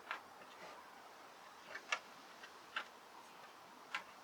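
About five light, sharp clicks at uneven intervals against a quiet background, with two close together near the middle.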